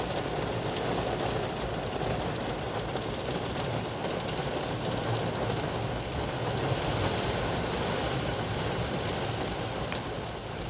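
Heavy rain falling, with the long, steady rumble of thunder after a lightning flash.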